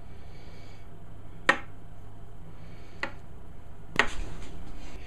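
A kitchen knife stabbed into a raw pastry pie lid to cut steam holes, giving three sharp clicks a second or so apart. The first click is the loudest, and a few fainter ticks follow the last.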